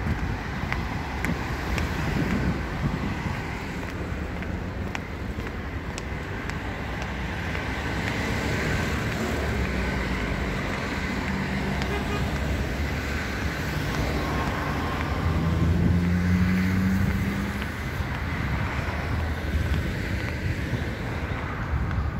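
Road traffic on the adjacent street: a steady wash of engine and tyre noise. One vehicle's engine hum grows louder and peaks about three-quarters of the way through as it passes close by.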